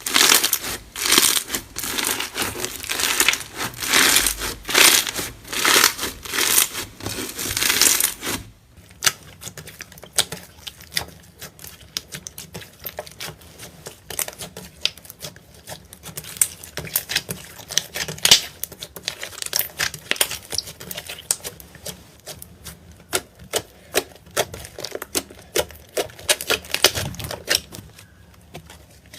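Slime being squeezed and played with: crinkly crackling squishes about once a second, then, from about eight seconds in, a long run of quick, sharp clicking pops.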